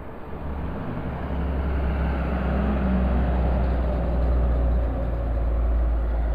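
A motor vehicle running close by, a steady low-pitched sound that grows louder about a second in and then holds.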